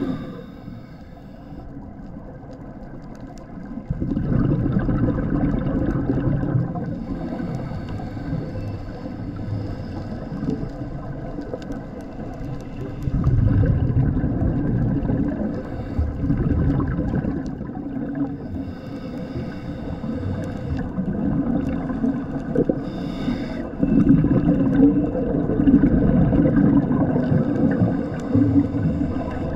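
Underwater sound of a scuba diver's breathing: exhaled bubbles from the regulator rumble in surges every several seconds, about three times. Under them runs a steady droning hum.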